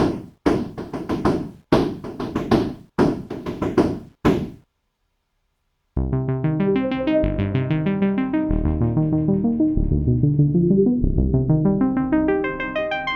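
Sound Particles MiniDust software synth playing two factory presets. First comes a bright, noisy stab repeated about five times, each hit decaying and cut off short. After a second and a half of silence comes a fast arpeggiated sequence of pitched notes.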